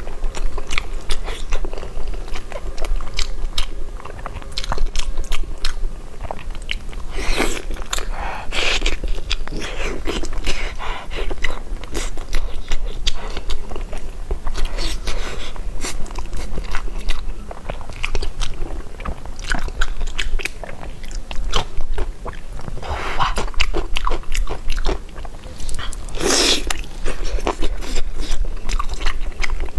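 Close-up eating sounds of braised beef tendon: biting and chewing, with wet, sticky mouth clicks and smacks throughout and a few longer, louder sucking sounds.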